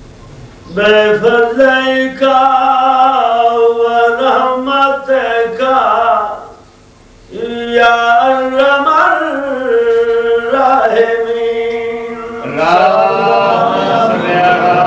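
A man chanting unaccompanied into a microphone in a melodic recitation style, holding long drawn-out notes. He sings three phrases, with a short breath pause about six and a half seconds in.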